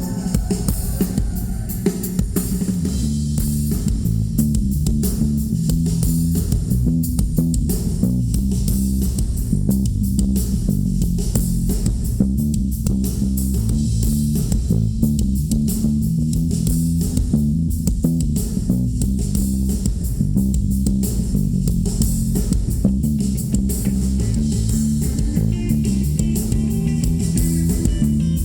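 Bass guitar solo, a run of low notes played over a steady drum beat by a live rock band.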